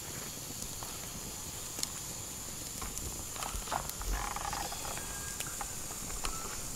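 Light clicks and rustles of hands threading palm weevil grubs onto a bamboo skewer over a banana leaf, over a steady high hiss of outdoor ambience. The rustling is busiest about halfway through.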